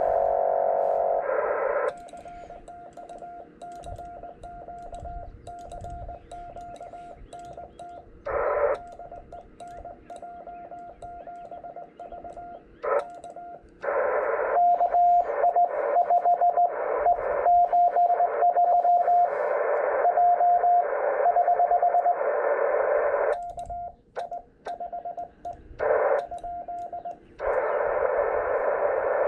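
Morse code from an HF ham radio transceiver on the 18 MHz band: a single mid-pitched tone keyed on and off in dots and dashes. Behind it is receiver hiss that drops low a couple of seconds in, then comes back in brief bursts and in long loud stretches from about halfway through and again near the end.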